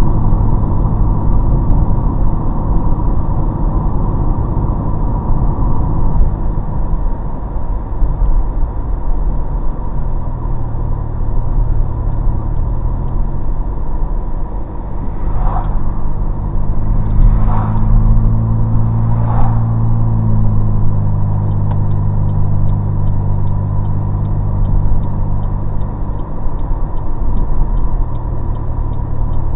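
2005 Chevrolet Cobalt with a custom exhaust driving, its engine and exhaust droning steadily from inside the cabin over road noise. About halfway through the engine note climbs as the car speeds up, holds for several seconds, then drops back.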